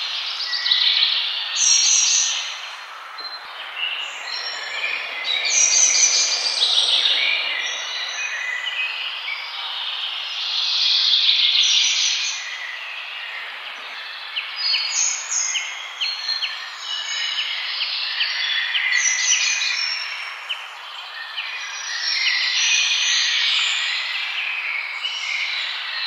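Many songbirds singing and chirping at once, overlapping calls and fast trills, over a steady background hiss.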